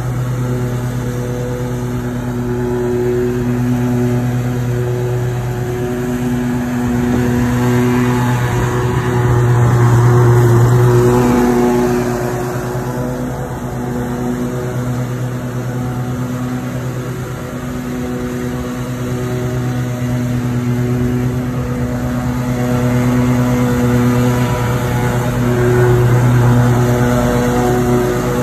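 John Deere EZtrak zero-turn riding mower's engine running steadily while mowing, a constant hum that swells louder about ten seconds in and again near the end.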